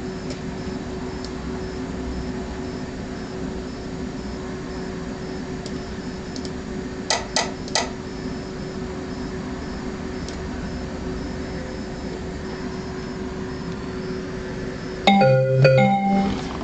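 Steady electrical hum with a few short clicks, then a short electronic chime of several stepped notes near the end.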